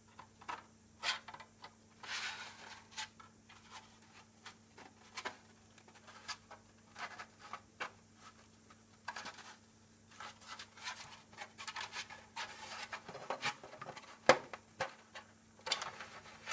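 SLS-printed nylon airframe parts being handled and pushed together: scattered light clicks, rubbing and scraping of plastic on plastic. Sharper clicks come near the end as the parts are pressed into a firm snap fit.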